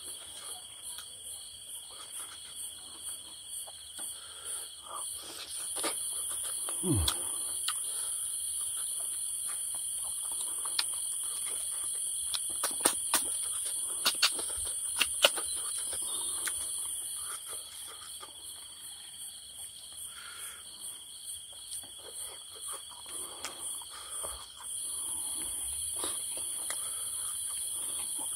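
Insects chirring steadily in a high, thin drone, growing louder from about six seconds in to about seventeen and again near the end. Scattered sharp clicks and small knocks sound over it, thickest in the middle.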